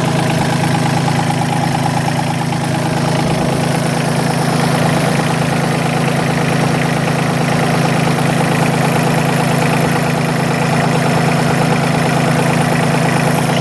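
Bobcat B250 loader backhoe's diesel engine idling steadily.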